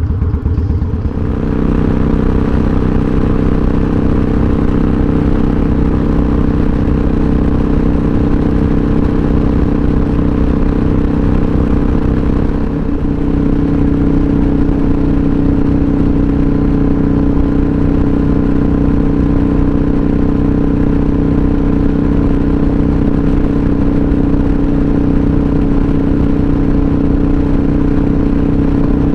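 Harley-Davidson V-twin motorcycle engine running at a steady cruise while being ridden; about 13 seconds in, the engine note shifts slightly higher and holds there.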